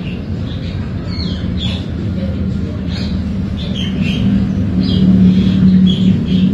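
Small birds chirping in short, repeated calls over a steady low hum that grows louder about four seconds in.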